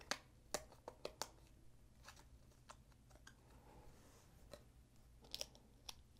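Stiff die-cut cardboard card being bent and folded by hand into a stand-up figure, giving a scattered series of short sharp crackles and clicks, several close together in the first second and a small cluster near the end.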